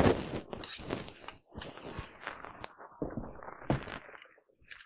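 Metal parts of a Colt LE6940P piston rifle clicking, clacking and scraping as its external piston system is taken apart by hand: a quick series of sharp clicks and short slides, loudest right at the start.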